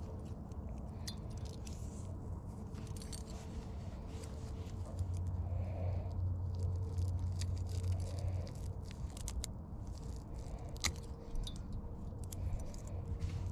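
Scattered small clicks, light rattling and scraping of fishing gear being handled in a kayak, with a low rumble swelling about five seconds in and again near the end.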